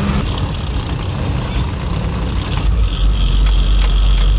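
Container lorry's diesel engine and road noise heard from inside the cab while driving. A deeper rumble and a faint steady high whine come in after about two and a half seconds.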